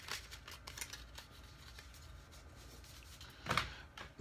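Paper receipt envelope and card being handled: a few quick rustles and light taps in the first second or so, then quieter handling, with a brief louder rustle near the end.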